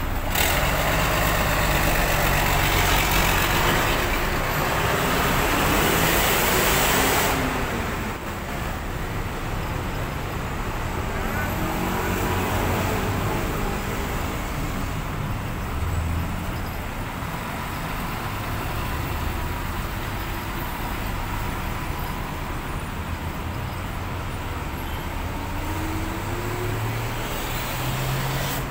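City traffic at a bus stop: diesel city buses running and pulling in and away, with cars passing. A loud hiss lasts about the first seven seconds and stops suddenly, and near the end an engine revs up in a rising pitch.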